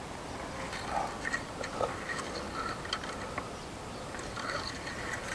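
A few light, scattered clicks and taps as the engine-oil dipstick is slid back into its tube and handled, with the engine off.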